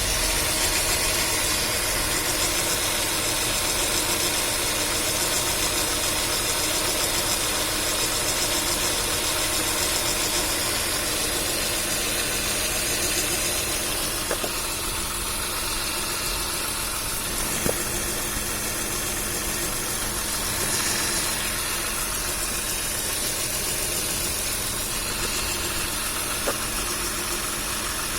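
Nissan VQ25DE 2.5-litre V6 idling steadily, heard from under the hood. It carries an unidentified extraneous noise that the owner noticed once the engine had warmed up a little. A few single sharp ticks stand out from the running.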